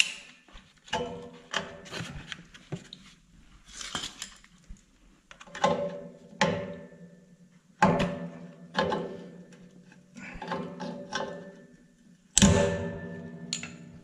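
Screwdriver and pliers levering a metal push-on star cap off the end of a wheel shaft: irregular metal clinks, scrapes and knocks, several ringing briefly, with the loudest a little before the end.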